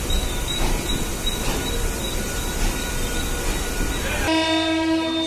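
Mumbai local train running, a loud steady rumble and rattle of the coach with a thin high whine. About four seconds in, the running noise cuts off abruptly and a single steady horn tone sounds.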